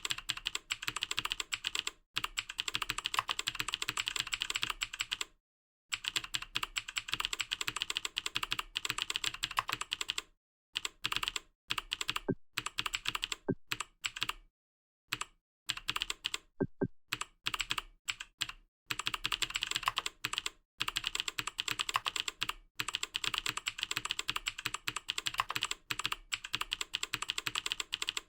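Fast typing on a computer keyboard: long runs of rapid keystrokes broken by brief pauses, thinning to scattered single strokes around the middle before picking up speed again.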